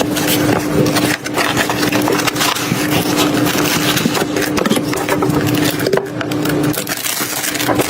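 PC parts and their packaging being handled: dense crackling and clicking, over a steady low hum.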